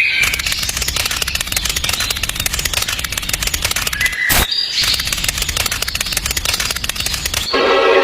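A fast, dense clicking rattle, broken briefly about four seconds in. Music starts near the end.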